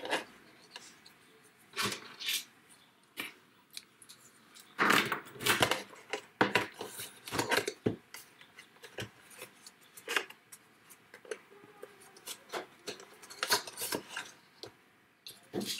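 Clear plastic packaging and cardstock being handled on a craft table: irregular crinkles, crackles and light taps, busiest in the middle of the stretch and again near the end.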